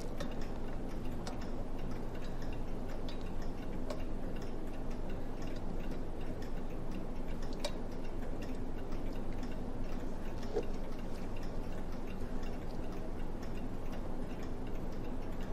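A mechanical clock ticking, over a low steady hum.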